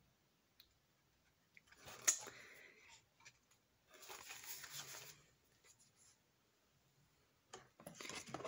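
Rustling and handling noises as items are set down and taken from a box: a knock followed by a short rustle about two seconds in, a longer rustle around four to five seconds in, and light clicks and rustling near the end.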